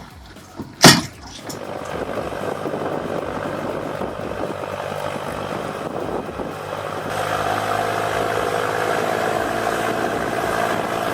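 A sharp bang about a second in, then a Valtra A93 tractor's four-cylinder diesel engine running steadily, getting a little louder about seven seconds in.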